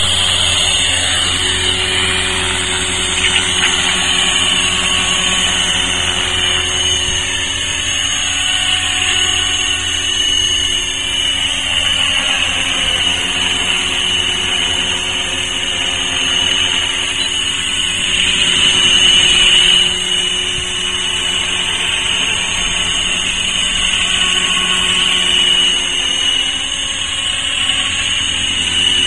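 Tarot 450 Sport electric RC helicopter in flight: a steady high whine from its brushless motor and drive gears over the low hum of the rotor blades. It swells for a moment about two-thirds of the way through and again near the end.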